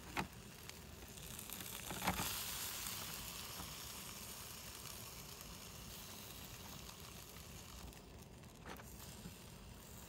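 Meat sizzling on the wire grill rack of a cardboard smoker box. Two sharp clicks come at the very start and about two seconds in. The sizzle swells after the second click and slowly dies down.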